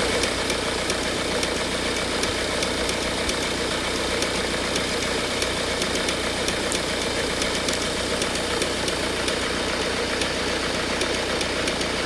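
Ford Focus 1.8 TDCi common-rail diesel engine idling steadily with a regular knocking/ticking. The tick is the sign of a faulty high-pressure fuel pump.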